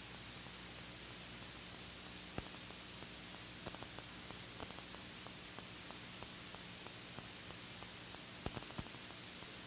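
Steady electronic static hiss with a faint low hum, broken by scattered faint clicks, mostly in the second half.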